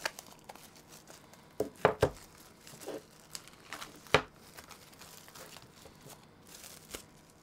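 Clear plastic wrapping crinkling and tearing as it is pulled off a power bank, in scattered crackles with a few louder ones about two seconds and four seconds in.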